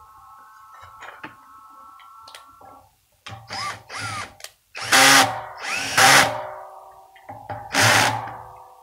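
Cordless drill/driver running in about five short bursts, its motor pitch rising as each starts, driving self-tapping screws into the dish's aluminium cover; the last screw goes in a little tight. A faint steady whine comes before the first burst.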